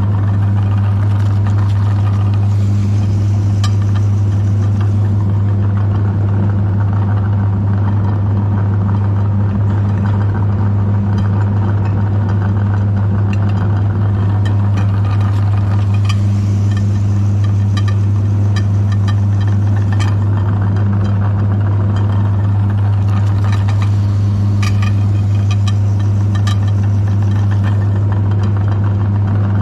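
Electric meat grinder motor running with a steady low hum, with scattered clicks and crackles from Oreo cookies being ground.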